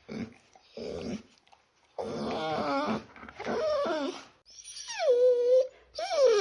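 Small dog whimpering and whining: two short whimpers, then a run of drawn-out whines that bend up and down in pitch. One whine near the end slides down and holds before another begins.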